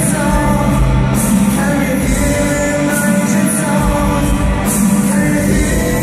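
Live synth-pop band playing in a large hall, a lead singer singing over drums, guitars, bass and keyboards.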